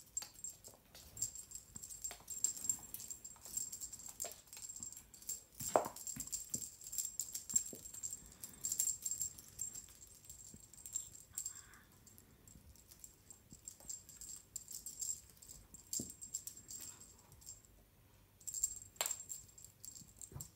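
Small jingle bell on a feather wand cat toy jingling on and off as kittens bat at it, with a few soft thumps and taps of kittens pouncing on a laminate floor, the strongest about six seconds in.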